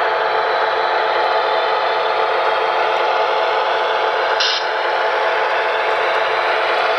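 The Paragon3 onboard sound system of a Broadway Limited HO-scale PRR GG1 electric locomotive model, playing its running sounds through the model's small speaker: a steady electric hum and rush with no bass. A brief higher sound comes in about four and a half seconds in.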